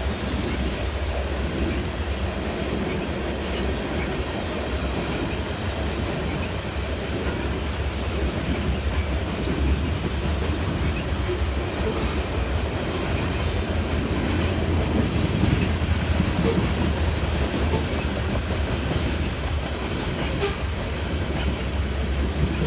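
Freight cars of a CN grain train rolling past steadily, their wheels running over the rails.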